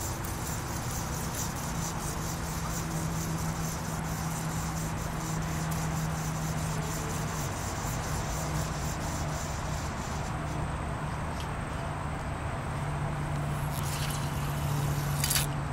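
Steady background noise with a low, even hum, and two short clicks near the end.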